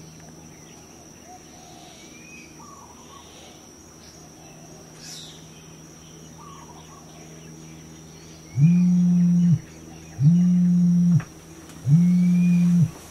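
Smartphone vibrating on a bed for an incoming call: starting about two-thirds of the way in, three low buzzes of about a second each with short gaps between.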